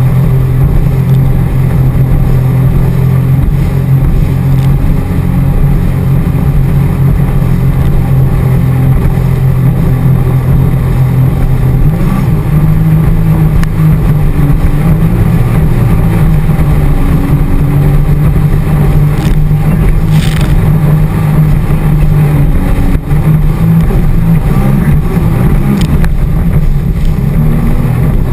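Sea-Doo personal watercraft engine running at speed, a steady drone that wavers up and down in pitch from about halfway through as the throttle changes.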